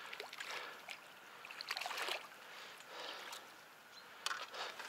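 Faint splashing and sloshing of water in several uneven surges as a hooked crucian carp is played and brought in, with a few small clicks.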